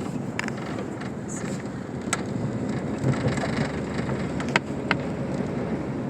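Steady low rumble of a vehicle driving on a snowy road, heard from inside the cabin, with a few sharp clicks, two of them close together just past the middle.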